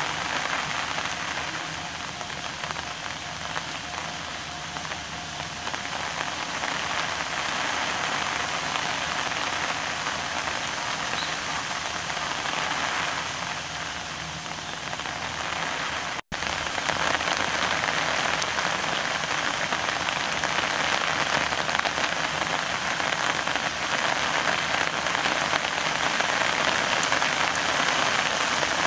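Steady rain falling. It cuts out for an instant about halfway through and is a little louder after.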